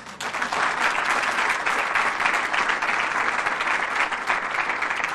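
Audience applauding, breaking out suddenly after a speech line and holding steady.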